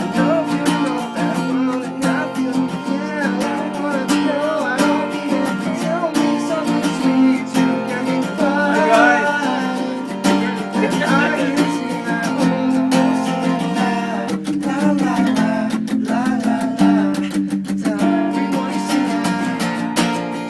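Music led by a strummed guitar, running steadily.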